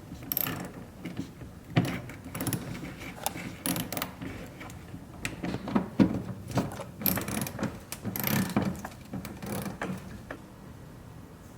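Socket ratchet wrench with a 5/16 socket clicking in irregular runs as the diffuser's 8 mm bolts are undone; the clicking stops about ten seconds in.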